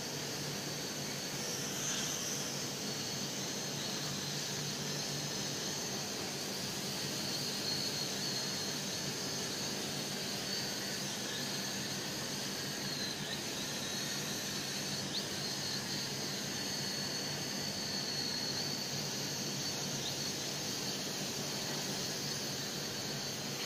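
Night Lions Tech N227 toy quadcopter flying, its small motors and propellers giving a steady high-pitched whine whose pitch wavers a little as it manoeuvres, over a steady hiss.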